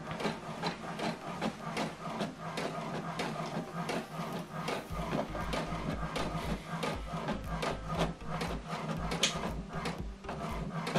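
HP DeskJet inkjet printer printing a colour page and feeding the sheet out into the tray: a dense run of quick mechanical ticks and whirs, with a low rumble joining about halfway through.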